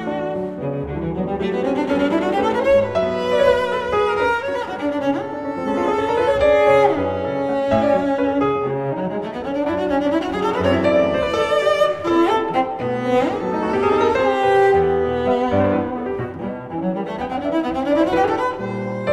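Instrumental music played mainly on bowed strings, with notes that slide between pitches, running as a continuous melody.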